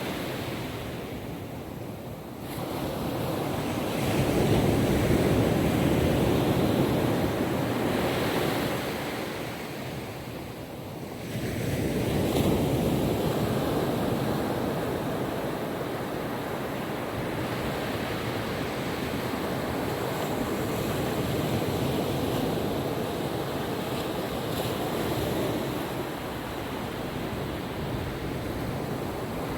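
Ocean waves breaking and washing on a beach, swelling and easing in slow surges, with wind on the microphone.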